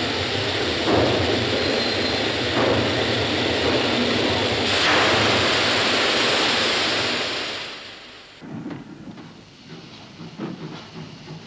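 Steam locomotive blowing off steam: a loud, steady hiss over a low rumble. About eight seconds in it drops away sharply to a quieter background of irregular knocks and clanks.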